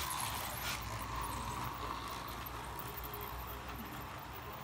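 Model freight train running on curved track close by: a steady low rumble of the wheels and motor, easing slightly toward the end.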